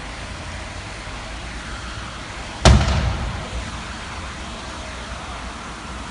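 A single loud bang from a burning car about two and a half seconds in, dying away over about a second, over a steady low rumble.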